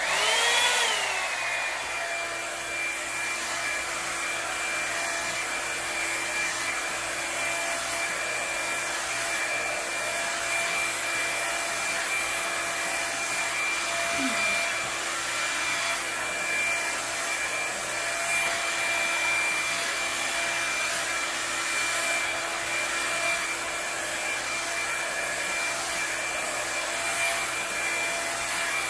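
Revlon One-Step paddle hair dryer-brush switched on at its low setting: the motor whine glides down and settles within about two seconds, then the dryer runs steadily, blowing air with a constant whine.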